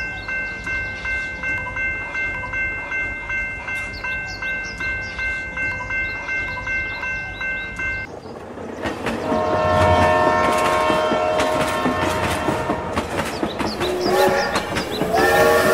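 Toy level-crossing signal's warning bell ringing in an even rhythm, about two to three strikes a second, stopping about halfway through. It is followed by a toy steam locomotive's electronic horn and whistle sounds, with pitch glides near the end.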